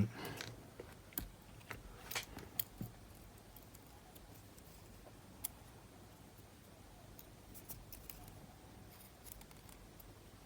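Small sharp clicks and ticks of a tool and tiny parts being worked on the cassette player's mechanism, several in the first three seconds and one more about five seconds in, then only faint handling.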